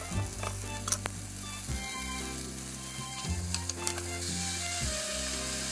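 Bok choy and strips of fried tofu sizzling in a frying pan, the sizzle growing brighter about four seconds in. Near the start, a couple of sharp knocks come from a kitchen knife cutting on a mango-wood cutting board. Background music with slow, steady low notes runs underneath.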